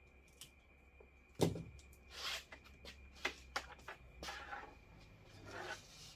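Hands-on handling noise from wiring work: a sharp knock about a second and a half in, then a scatter of clicks and short rustles, over a faint steady high whine.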